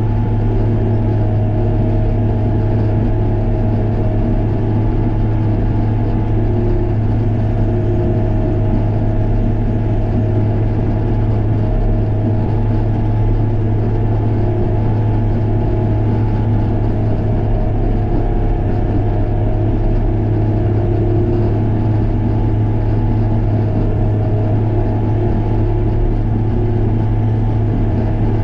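Diesel engine of a Case 850K crawler dozer running at a steady speed, with a constant low hum.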